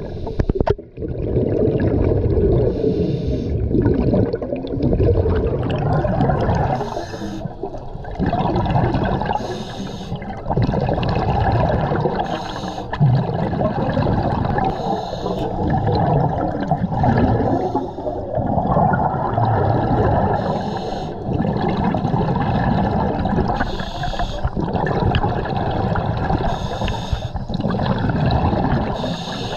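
Scuba regulator breathing heard underwater: a short hissing inhale about every three seconds, and between them the bubbling of exhaled air streaming past the microphone.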